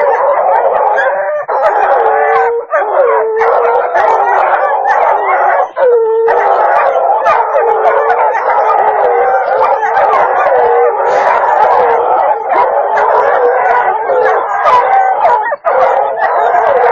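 Several hunting hounds baying nonstop at a mountain lion held at bay on a tree limb: long wavering howls mixed with sharp barks, the voices overlapping.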